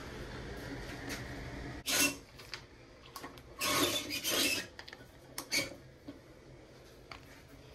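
Toilet auger working in a clogged toilet bowl: a steady rasping rub of the cable against the porcelain for the first couple of seconds, then a few separate scrapes and knocks as the auger is pulled out and handled.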